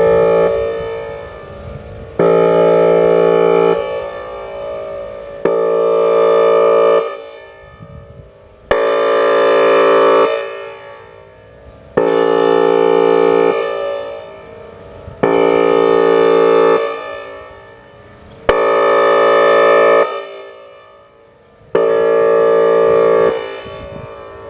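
Whelen Vortex outdoor warning siren sounding its airhorn tone: loud blasts of a low, chord-like horn, each about a second and a half long and repeated roughly every three seconds. Each blast cuts off sharply and leaves a fading echo.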